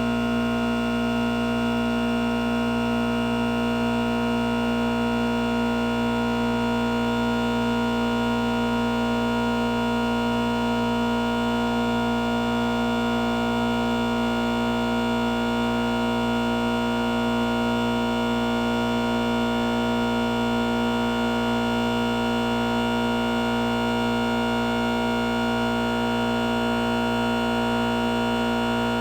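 Goodman heat pump outdoor unit running in defrost mode: a steady hum of several held tones, one low tone the strongest, over an even hiss.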